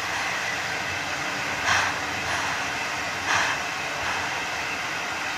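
C11 190 steam locomotive double-headed with a C10, starting a train slowly under a steady hiss of steam, with two heavy exhaust chuffs about a second and a half apart.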